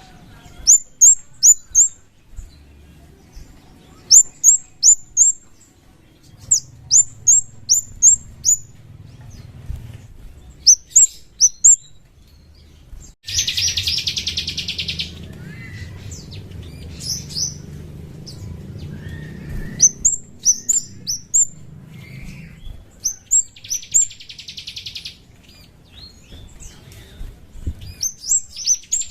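Kemade (scarlet-headed flowerpecker) calling: quick bursts of four or five sharp, very high, downslurred notes, repeated again and again, with a dry buzzing rattle of a second or two about 13 s in and twice more near the end.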